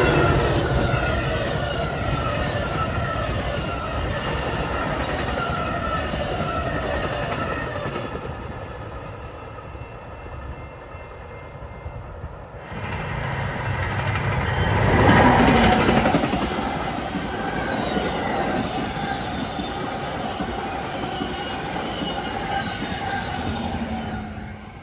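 Two passenger trains rolling past in turn. First a Metra bilevel commuter train's coaches go by and fade away. Then, after a cut, an Amtrak train of single-level coaches passes close, loudest about a third of the way through that part, with steady wheel-on-rail noise and short high wheel squeals, its Siemens Charger SC-44 diesel locomotive coming by near the end.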